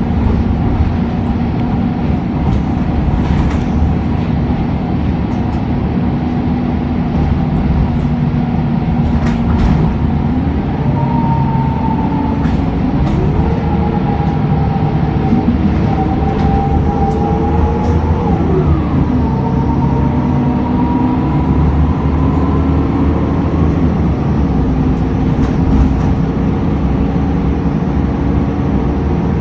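City transit bus heard from inside, its engine and drivetrain running under a steady rumble with a whine whose pitch climbs as the bus gathers speed, drops sharply about two-thirds of the way through, then climbs again. A few light rattles and clicks come through.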